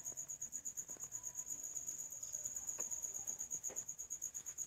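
A high-pitched trill of rapid, even pulses runs steadily, like a cricket chirping, with a few faint clicks.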